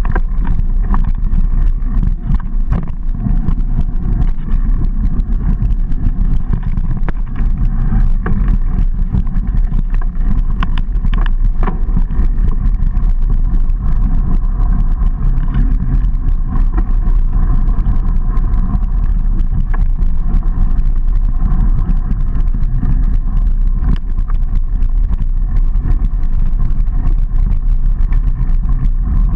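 A mountain bike ridden over a dry dirt singletrack, heard close up: a loud, steady rumble of tyres on the trail and air on the microphone, with constant small rattles and knocks from the bike over bumps.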